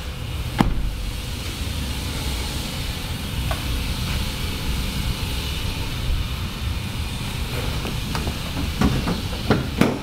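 Steady low rumble and hiss of industrial noise from a neighbouring steel factory. A car door shuts with a sharp knock about half a second in, and a few clunks near the end come from the hood being opened.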